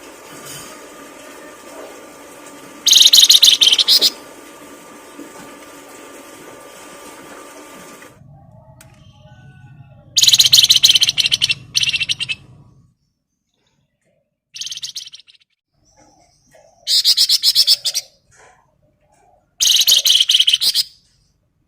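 A songbird singing loud phrases of rapid, trilled notes, each about a second long, four times with pauses of several seconds between. A faint steady hum lies under the first third.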